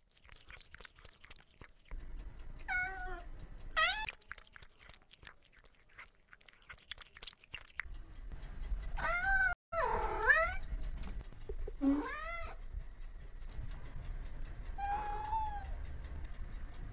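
Domestic cat meowing, about six separate meows at uneven intervals, each rising and falling in pitch. Over the first half a rapid fine crackling runs under the first couple of meows.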